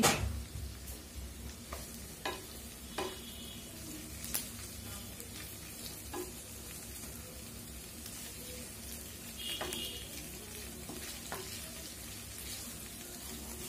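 Chicken pieces frying in a pan with a steady sizzle, the meat well browned. A wooden spatula stirs and scrapes through them, knocking on the pan every second or two.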